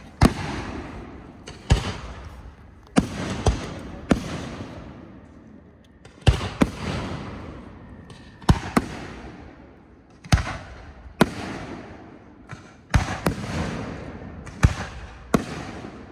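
Fireworks bursting overhead: a string of sharp bangs, some in quick pairs, each followed by a crackling rumble that dies away before the next.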